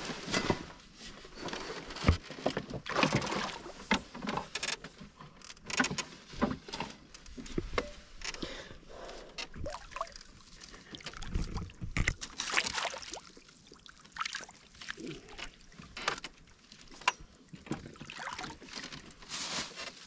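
A hooked fish thrashing at the surface beside a boat as it is played in on rod and line, making irregular splashes and sloshing water with short knocks.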